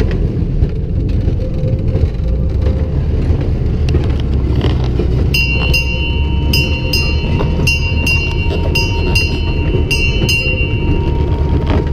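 Open passenger rail car running along the track, a steady low rumble of the car and its wheels on the rails. From about five seconds in, a high ringing ding repeats a couple of times a second and stops just before the end.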